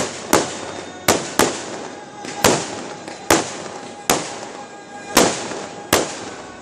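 Fireworks going off in a rapid, uneven string of sharp bangs, about nine in six seconds, each followed by a short fading echo.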